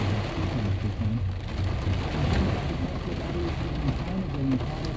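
Heavy rain pattering on a car's windshield and roof, heard from inside the cabin, with a steady low hum of the car underneath.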